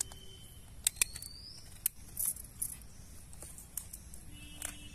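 Small river crabs' hard shells clicking and cracking as they are cut with a knife and broken apart by hand: a handful of sharp, separate clicks.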